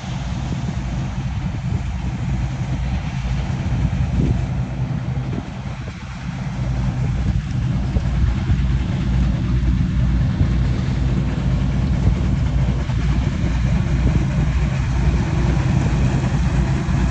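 Deutz-Fahr 4075 HTS Topliner combine harvester running while harvesting: a steady low engine drone with machinery noise over it, dipping briefly about six seconds in and then coming back a little louder.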